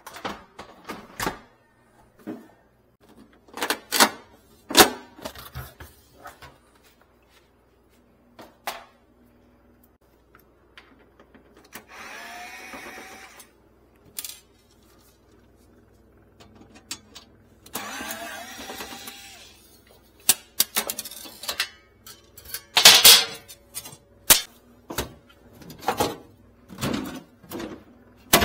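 Knocks and clatter of refrigerator parts being handled: plastic drawers, wire baskets and covers being pulled out and set down. There are two longer scraping, sliding sounds of a few seconds each, about halfway through and again a few seconds later, and the loudest knock comes near the end.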